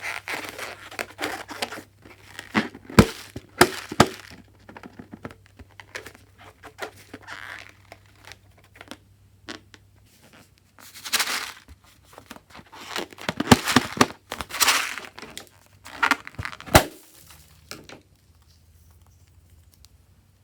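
Crinkling, crackling and tearing handling noises from slime-making materials, in irregular bursts with a few sharp clicks. It goes much quieter near the end.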